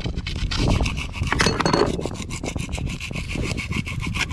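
Hand-held hacksaw blade sawing in quick, even strokes at an old skin fitting set in a wooden hull.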